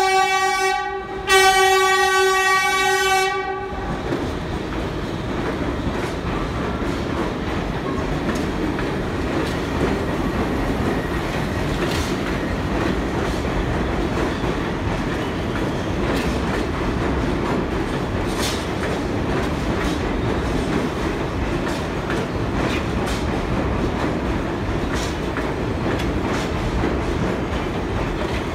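New York City Subway train horn sounding two long blasts, the second ending about four seconds in. Then the steady rumble of subway cars running past along the platform.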